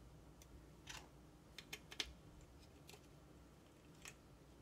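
Light plastic clicks and taps of LEGO pieces being handled and a cross axle pressed into a round hole. There are about half a dozen faint, irregular clicks, the sharpest about two seconds in.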